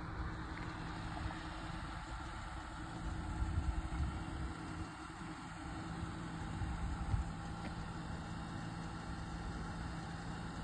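A car engine idling steadily, a low even hum, from the 2015 Dodge Charger, with a few stronger low rumbles a few seconds in.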